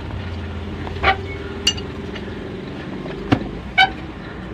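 Four sharp metallic clinks of parts and tools being handled at the timing belt pulleys of a Toyota HiAce 3.0 engine, over a steady low rumble.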